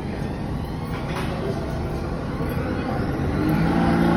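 New York City subway train of R46 cars running alongside an underground platform, a dense rumble of wheels on the rails that grows louder. A steady humming tone joins it about three and a half seconds in.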